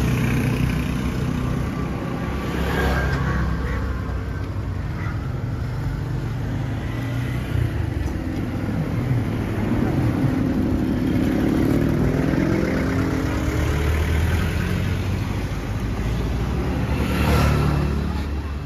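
A motor vehicle engine running steadily, rising in pitch as it speeds up a little past the middle, with a few brief sharp knocks.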